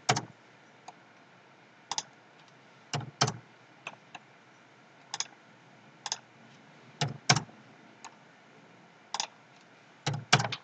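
Computer mouse and keyboard clicks at uneven intervals, several coming in quick pairs.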